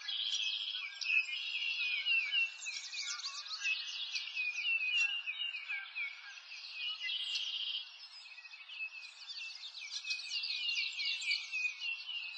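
Many small birds chirping and twittering at once: a dense, unbroken run of quick, high chirps.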